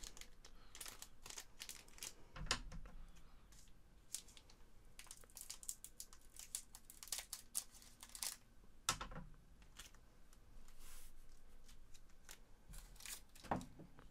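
Foil booster pack of Japanese Pokémon cards crinkling and rustling as it is handled and cut open with scissors: a steady run of faint short crackles, with two louder clicks about two and a half and nine seconds in.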